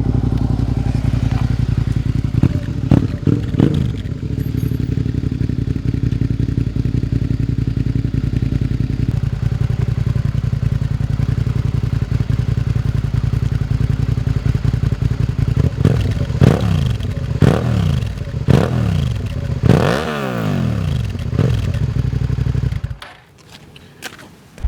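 Suzuki SV650S V-twin engine idling with a lumpy, steady beat, blipped briefly a few seconds in and then revved up and let fall back about five times in quick succession. The sound drops away abruptly near the end.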